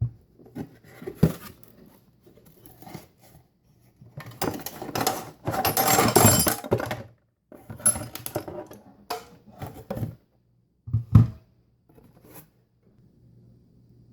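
Small hard objects being handled and set down on a work surface: scattered knocks and clicks, with a few seconds of scraping and rustling handling in the middle and one sharp knock near the end.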